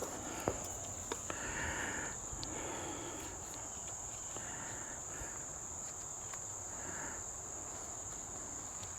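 Crickets chirring in a steady, high-pitched chorus, with a few sharp clicks near the start and soft intermittent rustling from handling gear.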